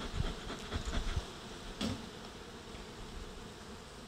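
Honeybees buzzing steadily around an opened hive. A few low bumps sound in the first second, and a short click about two seconds in.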